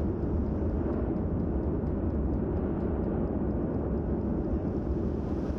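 Volcanic eruption rumbling steadily, a deep continuous roar as ash billows from the vent and an ash flow pours down the mountainside.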